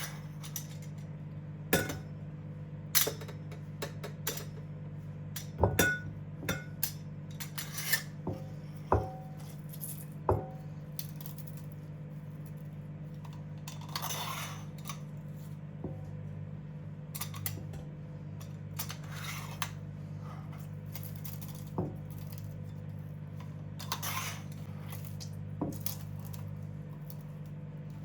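Kitchen clatter: dishes and cutlery clinking and being set down in scattered light knocks and clinks, with a few short scrapes, over a steady low hum.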